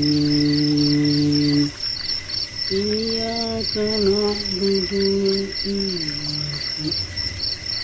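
Crickets chirping in rapid, even pulses throughout. Over them, a man's voice holds long, drawn-out notes without words, breaking off about two seconds in and resuming in shorter held phrases about a second later.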